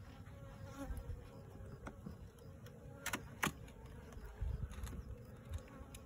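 Honeybees buzzing steadily in an open barrel top-bar hive, with two sharp clicks about three seconds in as the hive tool works the wooden top bars.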